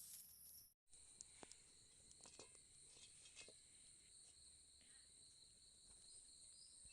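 Faint, steady high-pitched chirring of insects such as crickets, in two shrill tones, with a few faint scattered clicks. The sound cuts out completely for a moment just under a second in.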